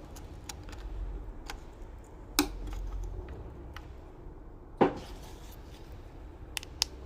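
Small hard plastic parts of a partly disassembled Moto Tag tracker clicking and tapping as they are handled, with two sharper clacks about two and a half and five seconds in.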